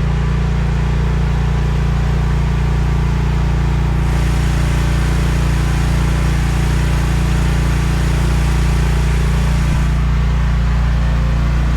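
Mini excavator's small engine running steadily, with a rougher, hissier layer coming in about four seconds in and dropping away near the end.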